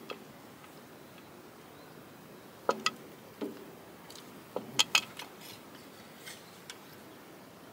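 Scattered sharp metal clinks and taps as a fuel pump is worked by hand onto the accessory drive coupling of a Cummins NHRS diesel engine. There are two close together about three seconds in, and a quick run of three, the loudest, near five seconds.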